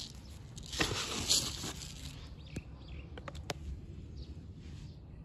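Calcium nitrate fertiliser granules being poured from a plastic sack into a plastic tub, rustling for about a second, followed by a few light clicks.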